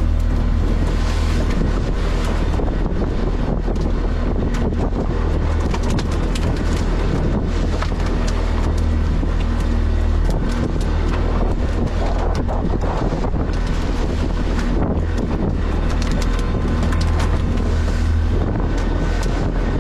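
Fishing boat's engine running steadily under way, with wind noise on the microphone.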